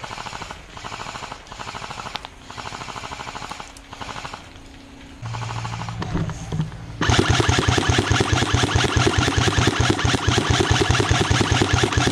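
Airsoft guns firing full-auto: short bursts of rapid clicking in the first few seconds, then from about seven seconds a much louder, long unbroken burst close by, with a steady low hum under it.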